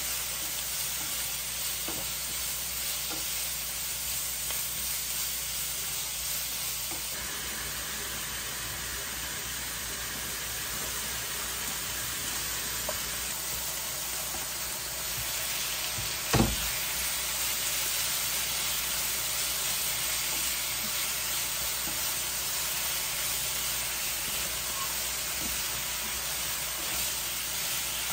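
Food frying in a pan, a steady hissing sizzle, with a single sharp knock about sixteen seconds in.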